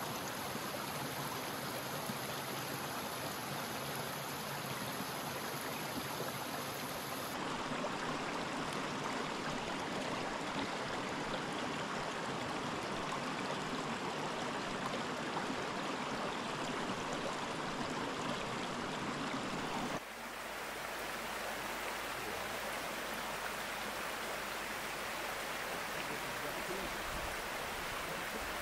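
Small mountain brook running: a steady rush of flowing water. Its character changes abruptly about seven seconds in and again about twenty seconds in.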